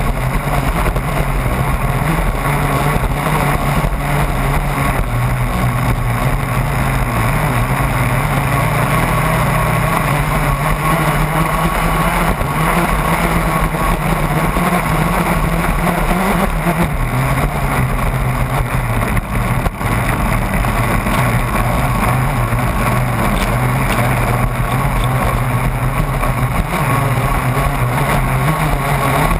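Radio-controlled scale offshore racing catamaran running at speed on open water: a steady motor note that dips briefly in pitch about halfway through and then comes back up, over constant rushing wind and water noise.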